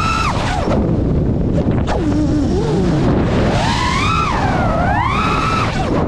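FPV quadcopter's electric motors whining, the pitch rising and falling with the throttle over a rush of air. The whine drops sharply about half a second in, climbs back near the middle, dips and rises again, then drops near the end.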